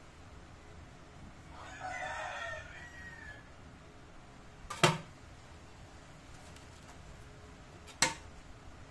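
A rooster crowing once in the background, about a second and a half long. Two sharp knocks follow about three seconds apart, louder than the crow, as a knife cuts through a log of dough against the board.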